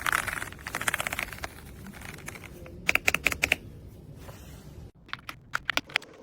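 Typing on an AULA F99 mechanical keyboard: a quick run of keystrokes for the first second and a half, a louder flurry around three seconds in, then a few scattered keystrokes near the end.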